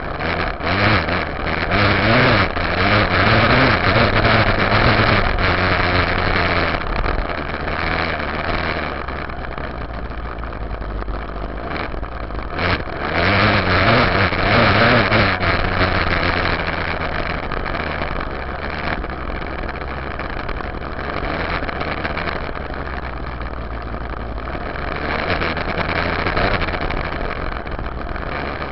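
Yamaha YZ dirt bike engine running while riding a trail, revving up and down with the throttle. Louder surges of acceleration come about two seconds in and again around thirteen seconds in, with steadier running between.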